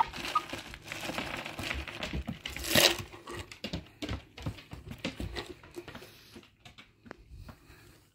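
Hen pecking shelled peanuts off a wooden floor: a quick, irregular run of sharp beak taps that thins out and grows fainter toward the end, with a short rustle about three seconds in.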